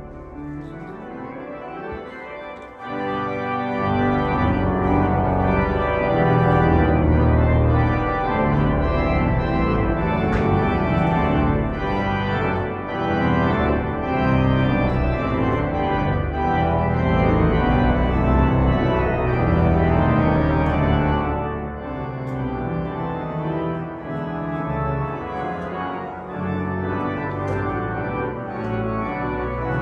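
Large pipe organ played live, sustained chords over deep bass notes, swelling louder about three seconds in.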